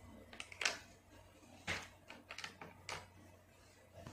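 Small plastic toy-kitchen pieces clicking and tapping together as they are handled: a handful of light, separate clicks.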